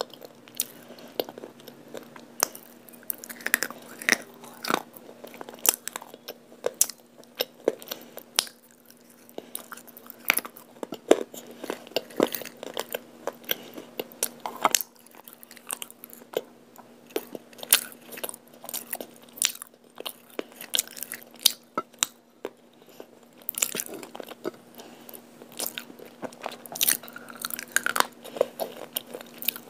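Close-miked biting and crunching of baked clay pot pieces coated in multani mitti (Fuller's earth) paste: many irregular sharp cracks and crunches with chewing between them. A faint steady low hum runs underneath.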